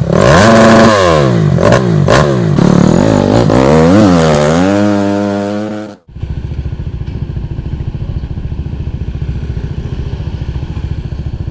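Yamaha Tricity's single-cylinder scooter engine under way, its pitch repeatedly rising and falling as the throttle opens and closes. After a sudden cut about six seconds in, it runs steadily at low revs with an even pulse.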